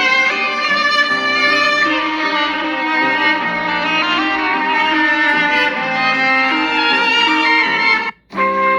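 Samsung Galaxy S23 Ultra ringtone playing, a melody of several instrument voices. It cuts off suddenly about eight seconds in, and the next ringtone starts right after.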